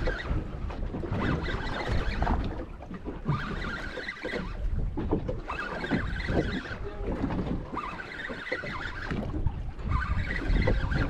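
Wind buffeting the microphone over water slapping at a boat's hull, while a fish is wound up on a fishing rod. A few short stretches of higher whirring come from the reel being cranked.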